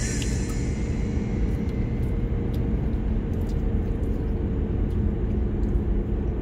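Steady low rumble of a moving car heard inside the cabin, with tyre and road noise and a faint steady engine hum.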